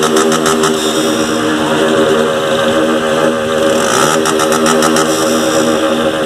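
160 motorcycle engine revved high and held there, running loud through its exhaust terminal (muffler tip). Its pitch dips a little past three seconds in and climbs back up.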